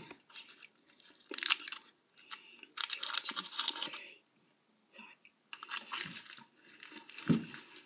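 A person chewing and crunching food close to the microphone, in irregular bursts with short pauses between.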